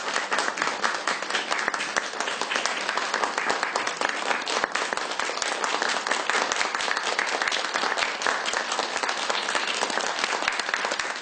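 Theatre audience applauding with dense, steady clapping.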